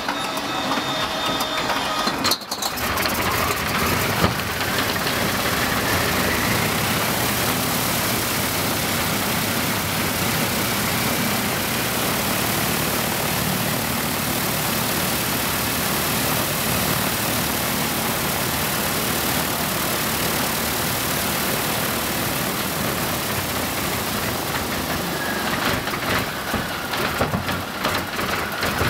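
Ilyushin Il-14's Shvetsov ASh-82T fourteen-cylinder radial engine being started on its inertia starter. A thin whine comes first; the engine catches with a sharp bang about four seconds in, then runs steadily and turns irregular near the end.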